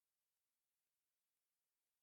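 Near silence: only a faint, even electronic hiss.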